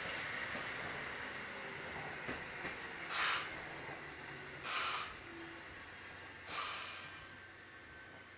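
Inside a Kotoden 1080-series electric train (ex-Keikyu 1000 series) slowing to a stop: the running noise fades away, and three short bursts of compressed-air hiss come about a second and a half apart.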